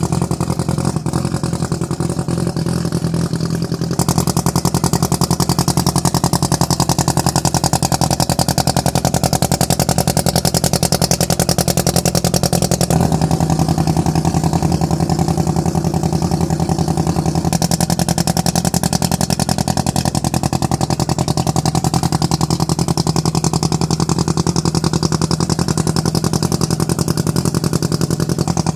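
Mazda RX-7's rotary engine idling with a steady, rapid pulsing exhaust note, not revving. The tone shifts abruptly a few times.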